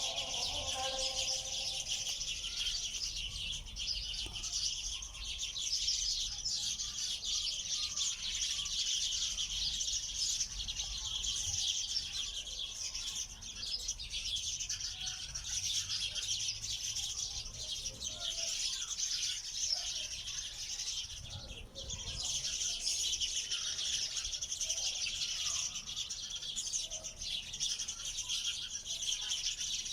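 A dense, continuous chorus of many small birds chirping and twittering together, with a brief lull about twenty-one seconds in.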